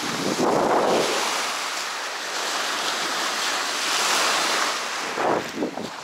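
Small waves washing onto a sandy, pebbly shore, with wind buffeting the microphone. The rush swells about half a second in and again around four seconds.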